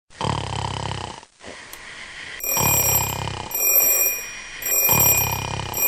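A person snoring: three low snores, about two seconds apart. From about halfway through, a high electronic alarm tone rings in short stretches over the snoring.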